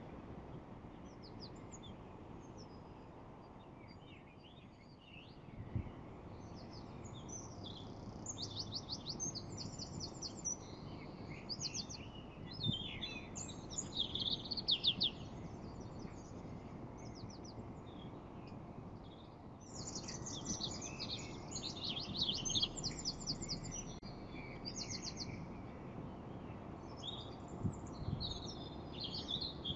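Several birds chirping and singing, with quick, rapid-fire trills in clusters, over a steady background hiss.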